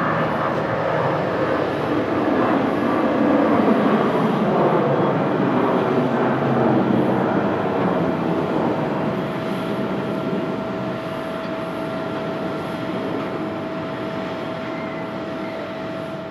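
Airbus A320-200 twin jet engines at takeoff thrust as the airliner lifts off and climbs out. The noise is loudest about four seconds in, then slowly fades as the plane climbs away, with a steady whine holding through the later part.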